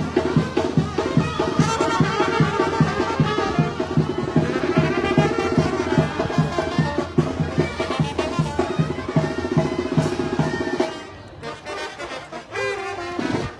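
Sinaloan banda playing live, brass and drums over a steady beat; the music stops about eleven seconds in.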